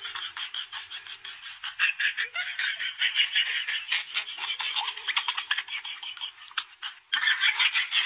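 A person laughing in rapid, breathy bursts, breaking off briefly about seven seconds in.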